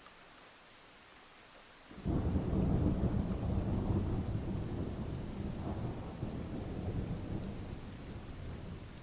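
A thunderclap: steady faint rain hiss, then about two seconds in a sudden loud, deep rumble of thunder that slowly dies away over several seconds.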